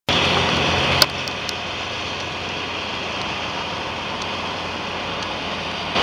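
Wood chipper's engine running steadily, heard from a distance as a low hum under a steady hiss. A sharp click about a second in, after which the sound is a little quieter.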